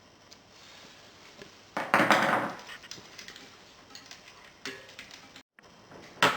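Metal tools and bike parts clattering as they are handled, with a loud rattle about two seconds in and a few sharp knocks later.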